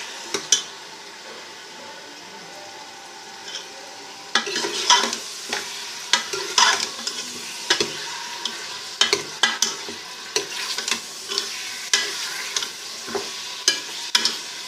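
Mutton pieces frying in hot ghee with garlic-ginger paste, sizzling steadily as the meat browns, while being stirred in the pot. From about four seconds in, frequent sharp scraping and knocking strokes of the stirring sound over the sizzle.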